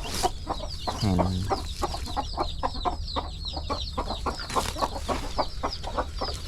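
A crowded flock of chickens clucking continuously, a dense run of short calls with many high, quick falling peeps among them.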